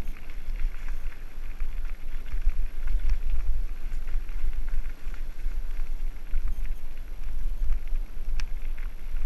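Mountain bike riding down a rough trail. A constant low rumble and buffeting of wind on the microphone runs under a steady rattle of the bike's chain and frame, with a few sharp clicks over bumps, the clearest near the end.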